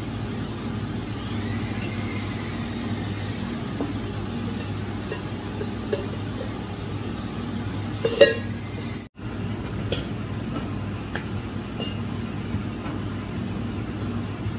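Kitchen cooking sounds over a steady low hum: light spatula taps on a griddle, and about eight seconds in a sharp clink of a steel pot, the loudest sound. Just after, the sound cuts out for an instant.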